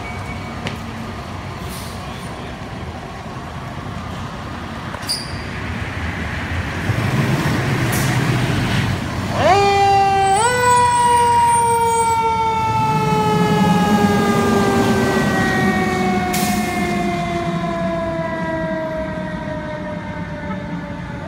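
Fire engine pulling out, its engine running and building for the first several seconds; then, a little under halfway through, its mechanical siren winds up quickly in two steps and slowly winds down, its pitch falling steadily to the end.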